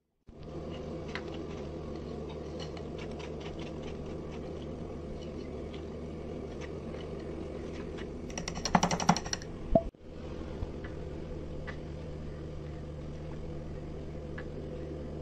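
Wire whisk stirring thick chocolate cake batter in a glass bowl: scattered clicks of the wires against the glass over a steady background hum, with a quick run of rattling taps and a knock a little before the middle.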